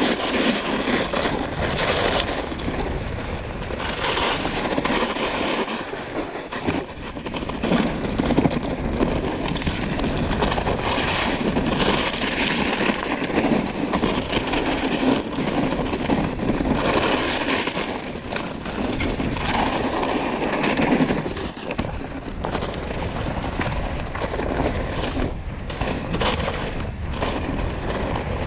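Trek Slash mountain bike riding down a snowy, then dirt and pine-needle singletrack: continuous tyre noise over the ground with frequent knocks and rattles from the bike, and wind buffeting the microphone.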